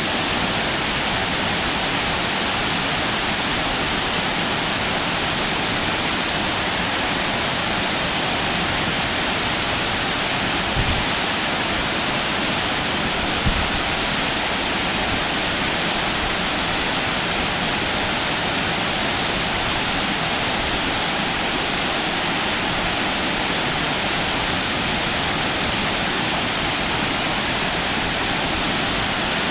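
Waterfall: a steady, even rush of falling water, with two brief low bumps near the middle.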